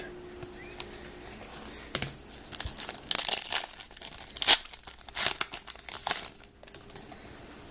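A trading-card pack wrapper crinkling and tearing as it is handled and opened. It comes in a string of short crackling bursts from about two seconds in, is loudest around the middle and stops shortly before the end.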